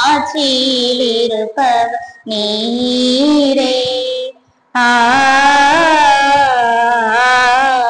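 Church hymn singing: long melodic phrases with a wavering vibrato, with a short break about four and a half seconds in.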